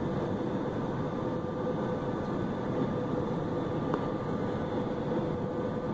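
Cabin noise of a jet airliner descending to land, heard from a window seat over the wing: a steady rush of turbofan engine and airflow with a constant hum.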